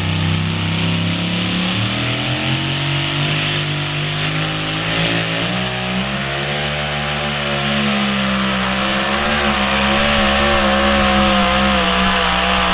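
Supercharged engine of a two-wheel-drive pulling truck at full throttle, dragging the weight sled down the track. The engine note wobbles up and down in pitch as the truck fights for traction, and grows louder near the end as it comes closer.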